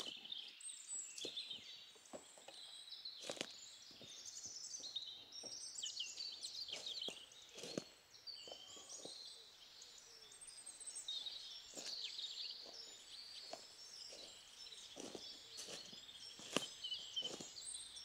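Woodland birdsong: several small birds chirping and singing without a break, faint, with occasional short snaps and rustles of footsteps in the leaf litter.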